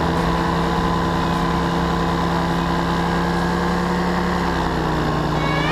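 Microlight trike's engine and propeller running steadily, with rushing air, the pitch dropping a little about four seconds in.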